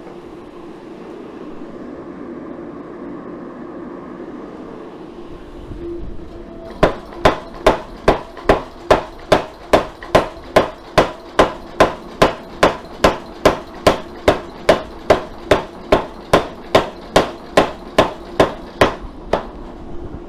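Steady gas forge running, then a power hammer striking the hot San Mai billet in an even run of about thirty blows, a little over two a second, setting the forge weld; the blows stop about a second before the end.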